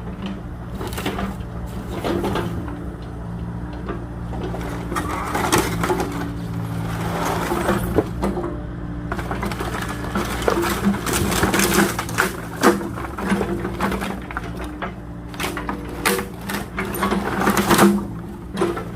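Small agricultural excavator's engine running steadily while its bucket crushes wooden pallets, the boards cracking and splintering in quick, irregular snaps that grow busier near the end.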